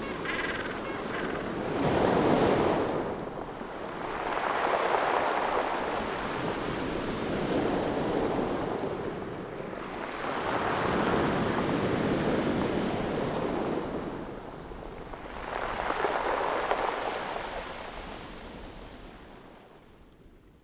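Ocean waves washing in. The noise rises and falls in swells every few seconds, then fades out near the end.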